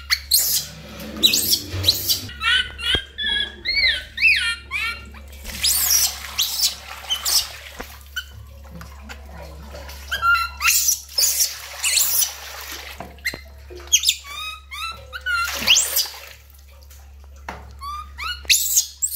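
Baby macaque crying in runs of shrill, squeaky calls that rise and fall in pitch, with a short lull near the end. Water splashes in a metal basin between the calls as the baby is bathed.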